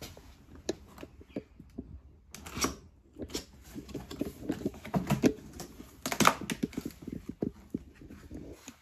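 Cardboard box and packing being opened and handled: a string of irregular knocks, scrapes and rustles, the loudest about six seconds in.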